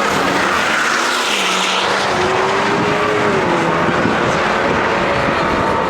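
Car engine running hard, its pitch dipping and rising as the revs change.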